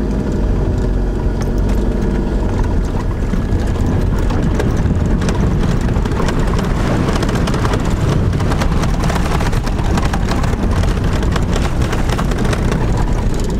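Camper van's engine running steadily under load while fording a fast-flowing river, heard from inside the cab, with water rushing and splashing against the vehicle.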